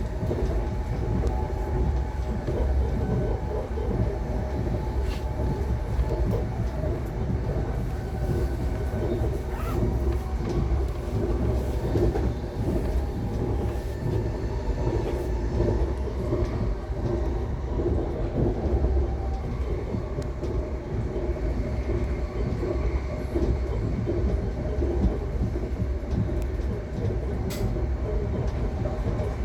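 Passenger train running steadily, heard from inside the carriage: a continuous low rumble of wheels on rail, with a few sharp clicks.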